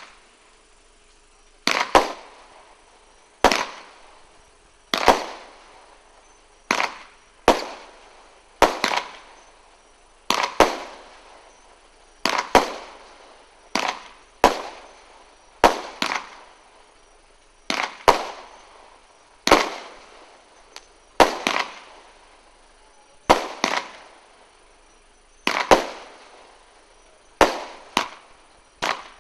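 Consumer fireworks cake ('Thunder Night', LC0664) firing its shots one at a time: a sharp bang every second and a half to two seconds, each with a short fading tail, some coming as a quick double bang.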